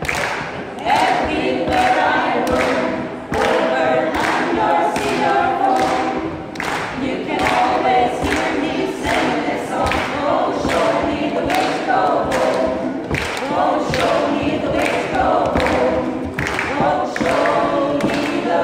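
Small mixed choir singing unaccompanied in several parts, with a steady rhythmic pulse of about two beats a second.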